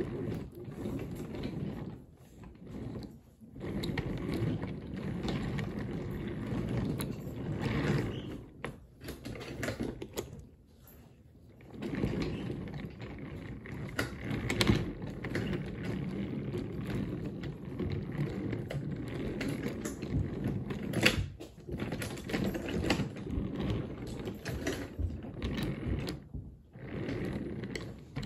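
Wooden toy train cars rolling along wooden track: a steady rattling clatter of wooden wheels over the track, with a few sharp clicks and three brief lulls.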